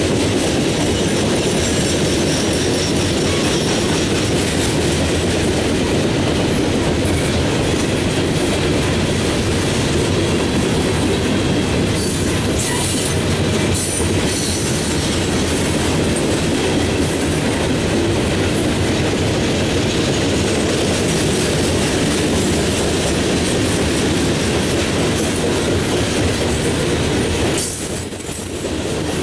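Freight train of open-top coal hopper cars rolling past: a steady, loud rumble of steel wheels on rail with clickety-clack, a few sharp clacks around the middle, and a brief louder clank near the end.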